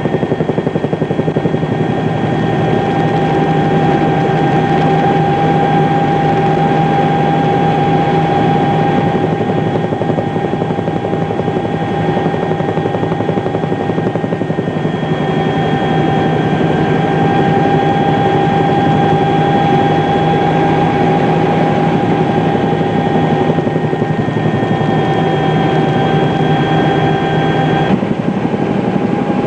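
A steady engine drone with a constant whine over a rough hum. It shifts slightly in pitch about halfway through and again near the end.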